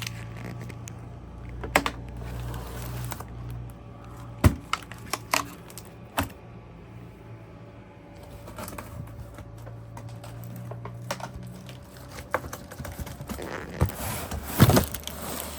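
Handling noise while unpacking a case of firework shells: scattered knocks, clicks and taps of cardboard packaging and tubes being moved, the loudest near the end, over a steady low hum that fades out about twelve seconds in.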